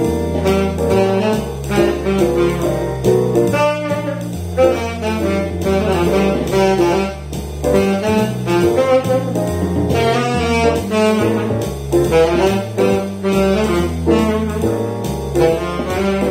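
Tenor saxophone playing a jazz melody at a medium swing tempo over a backing track with a walking bass line.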